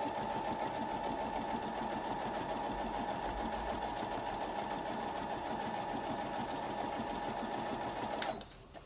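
Electric sewing machine stitching at a steady speed, its motor giving a constant whine, then stopping suddenly about eight seconds in.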